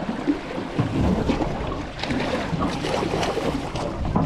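Wind buffeting the microphone and water moving around a small boat at sea, with a few scattered short knocks and splashes.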